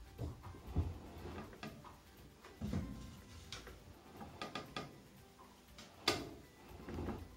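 Handling noise from a homemade wood-board and cable puller rigged over a washer tub: irregular knocks and clicks with low thumps and rustling, a quick run of clicks a little past the middle and a sharp click near the end.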